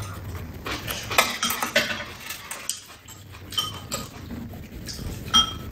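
Metal spoons and chopsticks clicking and clinking against bowls, with a couple of clear ringing clinks in the second half.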